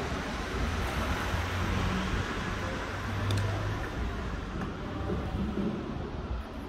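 Steady traffic noise with a low hum underneath.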